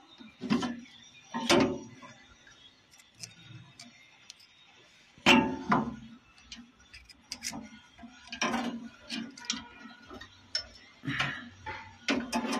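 Metal clinks and knocks of brass gas fittings, pipe and spanners being handled while a gas fryer's control valve is refitted. A series of separate short strikes, the loudest about five seconds in.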